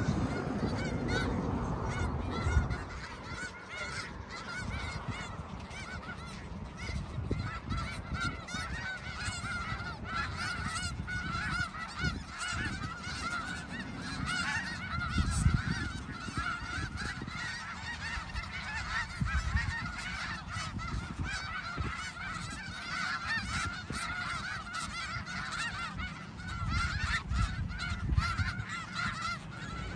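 A large flock of snow geese calling continuously, with many high honks overlapping into one steady clamour. A low rumble runs underneath.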